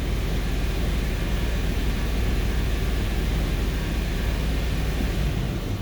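2002 Toyota Sequoia's 4.7-litre V8 running steadily, held at about 2,500 rpm, with a steady hiss over the engine note. The engine has a misfire that the owner is chasing through odd bank 2 fuel trims.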